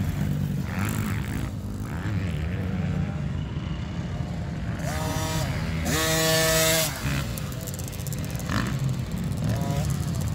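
Dirt bike engines running: a steady low drone throughout, with one bike revving up sharply and loudest about five to seven seconds in, and another rev near the end.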